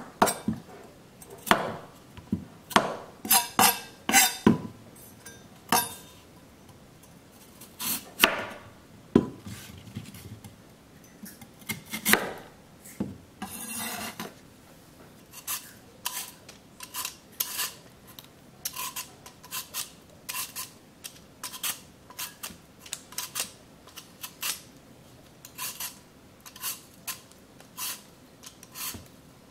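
A kitchen knife trimming and cutting through a lotus root on a wooden cutting board, in irregular strokes. About halfway in, a vegetable peeler starts scraping the lotus root's skin off in short, regular strokes, about one and a half a second.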